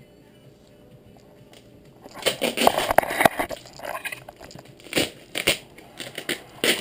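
Duct tape being ripped and peeled off a tightly wrapped package. The crackling, crinkling tears come in quick irregular bursts, starting about two seconds in after a quiet start.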